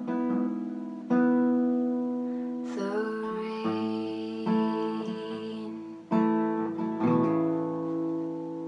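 Acoustic guitar strummed in slow, separate chords, each one left to ring and fade. The last chord, about seven seconds in, is left to ring out.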